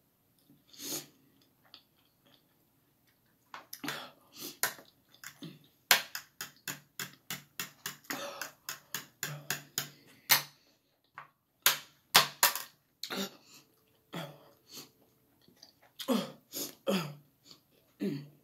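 A man eating very spicy instant noodles: a run of short, sharp chewing and mouth noises, about three a second in the middle, with a few short low groans near the end from the heat.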